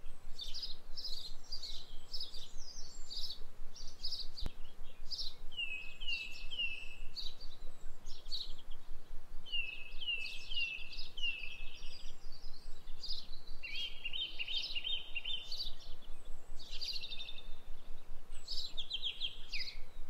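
Birds singing and chirping steadily, with many short calls overlapping. Runs of three or four downward-sliding whistles come about six and ten seconds in, and a rapid trill comes about fourteen seconds in.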